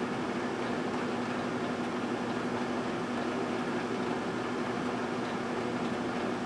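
1978 GE Dual Wave microwave oven running mid-cycle: a steady electrical hum over even fan noise.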